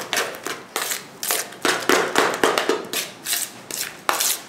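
Spoon stirring thick cupcake batter in a plastic mixing bowl: quick, irregular scraping and squelching strokes, several a second.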